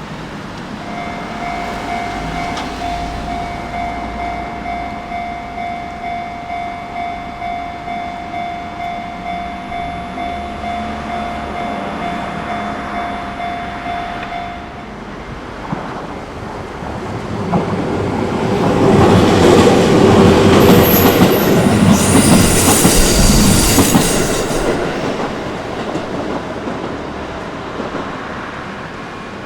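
Japanese level-crossing warning bell ringing in a steady repeating pattern, stopping about halfway through. A train then passes the crossing, growing loud with wheel and rail noise and a brief high squeal, then fading away.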